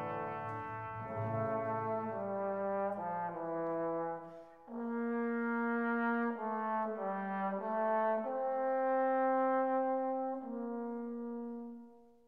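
Accompanying music of slow, held chords that change about once a second. There is a brief dip about four and a half seconds in, and the chords fade out near the end.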